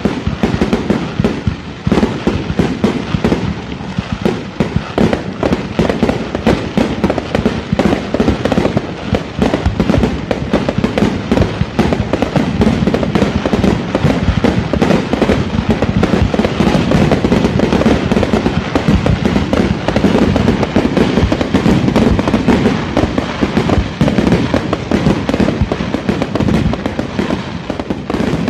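Professional fireworks display: a dense, continuous barrage of bangs and crackling from aerial shells, rising comets and ground fountains.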